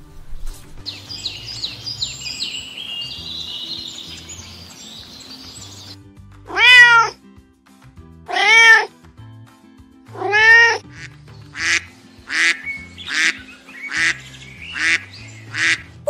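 Domestic cat meowing: three long, loud meows that rise and fall in pitch, then a quicker run of shorter meows. Before the meows there is a high, thin twittering, and soft background music plays throughout.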